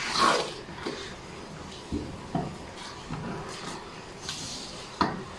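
A taped parcel being handled and opened: a rustle at the start, then a few scattered light knocks and clicks.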